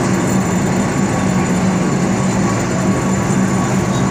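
Heavy piling machinery on a kingpost installation site running steadily: a loud, even engine drone with a low hum and no separate hammer blows.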